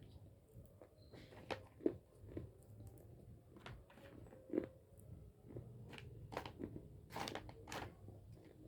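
A person biting and chewing small chunks of Hyderabadi white khadi (edible white clay), with irregular sharp crunches, a few louder than the rest.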